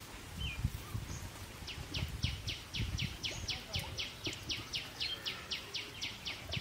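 A small animal calling in a steady series of short high chirps, about four a second, starting a little under two seconds in, over a low outdoor rumble.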